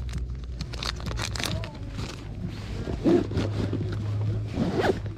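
A small plastic packet rustling and clicking as it is handled and packed into a canvas tackle bag, over a low steady hum. Brief faint voices come about three seconds in and near the end.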